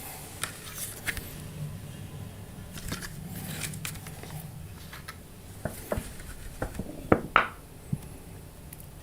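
Crunchy food being handled and chewed close to the microphone: scattered crackles and sharp clicks, the loudest cluster a little past halfway, over a low steady hum.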